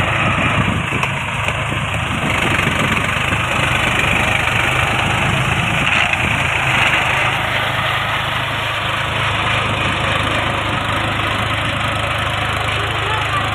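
Kushal tractor's diesel engine running steadily under load as it pulls a rotary tiller through flooded paddy mud.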